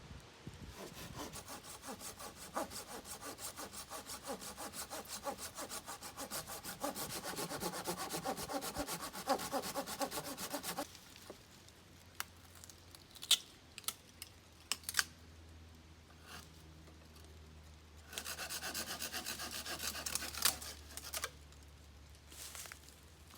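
Hand saw cutting through wood in quick back-and-forth strokes for about ten seconds. A pause follows with a few sharp knocks, then a second short run of sawing near the end.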